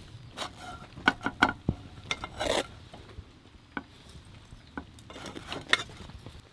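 Metal tongs clicking sharply against a frying pan several times about a second in, followed by short scrapes and rattles as the sandwich is turned in the pan and the pan is moved.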